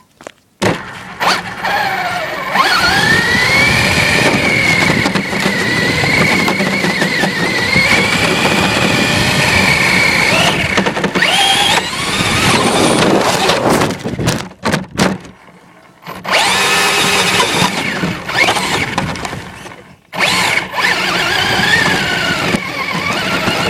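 Electric motor of a toy RC car whining at full speed, its pitch rising and falling as the throttle is worked. It cuts out twice, in the middle and again a few seconds later, and then picks up again.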